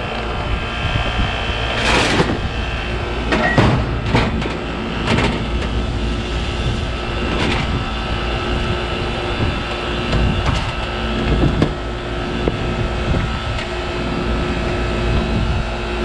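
Carrier rooftop packaged air-conditioning unit running steadily, its compressor and condenser fan forced on with the open low pressure switch jumped out at the control board. A sheet-metal access panel is fitted back on, giving several clanks and rattles in the first half.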